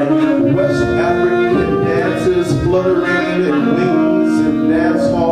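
Two saxophones playing jazz together, long held notes that step from pitch to pitch, often two notes sounding at once.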